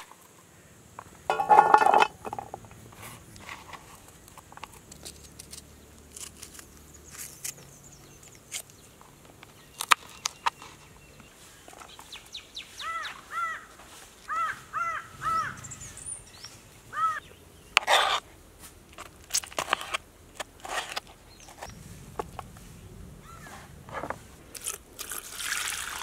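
Sharp taps and clicks of a knife against a plastic cutting board as small onions are cut, with a crow cawing a run of about eight calls midway through. Near the end, water starts pouring into a steel bowl.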